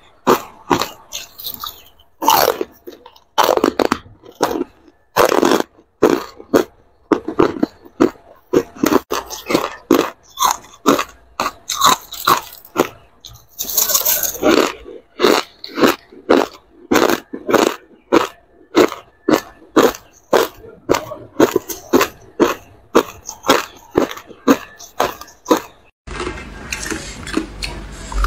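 Ice being bitten and chewed close to a clip-on microphone: a long run of loud, sharp crunches, two or three a second.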